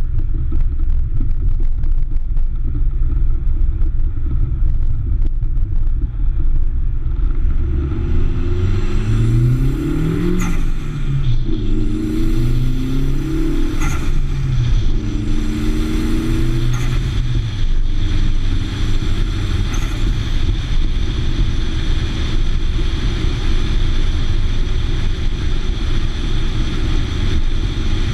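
Tyres crackling over gravel, then the Nissan 240SX's SR20DET turbocharged four-cylinder pulls hard up through the gears. Its note rises four times, each time cut short by an upshift, about a second apart from one another at three-second intervals. It then settles into a steady cruise with road and wind noise.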